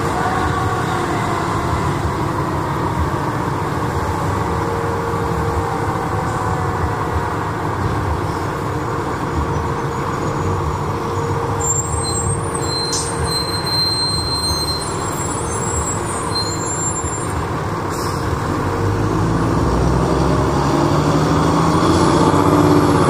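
Heavy fire rescue truck's diesel engine running as the truck pulls out and drives off, a steady low rumble that grows louder over the last few seconds as it comes closer.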